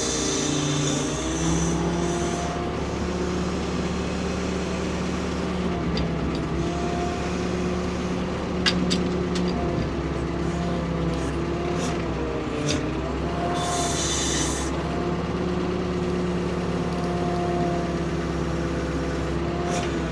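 Ford P-42 excavator's diesel engine running steadily under load, with a hydraulic whine that rises and falls as the controls are worked. Short bursts of hiss near the start and about two-thirds of the way through, and a few sharp clicks a little before the middle.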